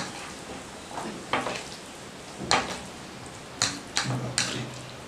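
A fork stirring and tossing spicy noodles on a plastic tray: a series of short scrapes and clicks, about six in five seconds.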